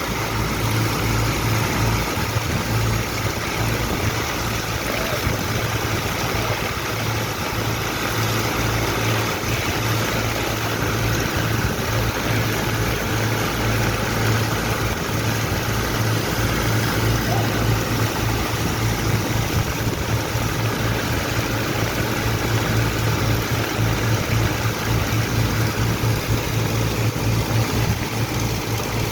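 A large diesel engine on a sand-dredging rig running steadily, a deep even drone with a pulsing low end under a constant rushing noise.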